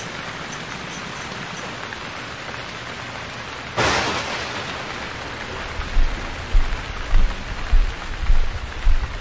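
Steady rain-like hiss. About four seconds in, a sudden loud swoosh that fades away, then from about six seconds in, low thumps at an even pace, a little under two a second.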